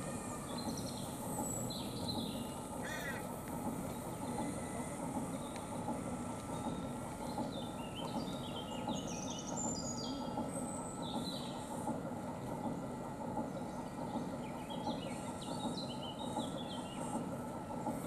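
Small birds chirping and calling in short notes, busiest about eight to ten seconds in and again near the end, over a steady outdoor background hum with a faint steady whine.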